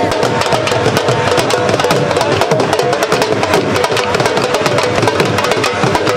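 Several dhols, double-headed barrel drums, beaten with sticks in a fast, dense, unbroken rhythm. Sharp clicks from the thin stick sit over deep booms from the bass head.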